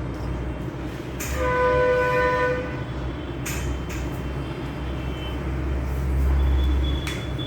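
A horn sounds once for about a second and a half, over a low steady rumble that swells about six seconds in, with a few sharp clicks.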